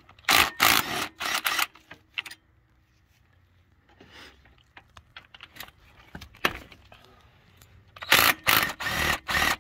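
Cordless impact wrench hammering in short bursts as it loosens rocker-arm bolts on a Caterpillar 3406 diesel head: a cluster of bursts at the start and another near the end, with faint metallic clicks between.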